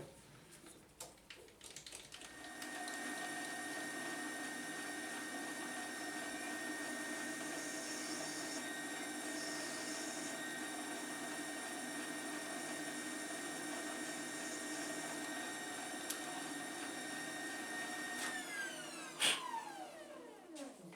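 A metal lathe's motor and spindle start up and run at a steady speed with a constant whine, taking a light cut to open up a hole. Near the end it is switched off and winds down with falling pitch, and a sharp click comes just after the spin-down begins.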